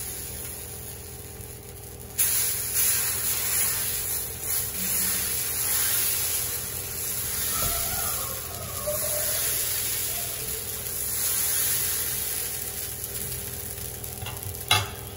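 Pesarattu (green gram dosa) batter sizzling on a hot dosa tawa as it is ladled on and spread in circles with the back of the ladle; the sizzle grows louder about two seconds in and then holds steady. A short knock near the end.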